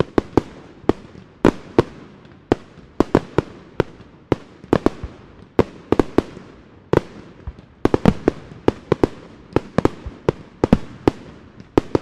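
Fireworks going off in a dense, irregular barrage of sharp bangs, about two to four a second, each with a short echoing tail over a steady crackle.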